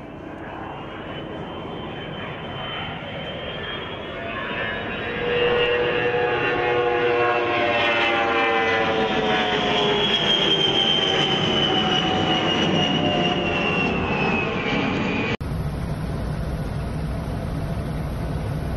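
Beriev Be-200 amphibious jet's twin turbofan engines on a low pass: the engine whine grows louder and then slides slowly down in pitch as the aircraft goes by. About fifteen seconds in, it cuts abruptly to a steadier low rumble.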